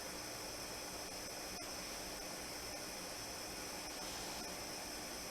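Faint, steady hiss with a light hum underneath: the recording's own background noise, with no other sound.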